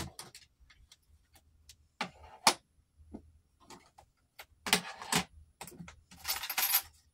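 Makeup palettes clicking and clattering against each other as they are sorted by hand in an open vanity drawer: scattered clicks and knocks, the sharpest about two and a half seconds in, a cluster of knocks around five seconds in, and a rustling shuffle near the end.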